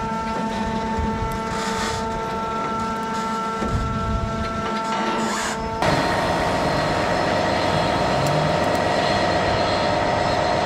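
Slow-moving coal train being loaded on the move: a steady mechanical rumble with several held tones, which changes abruptly about six seconds in to a noisier rumble.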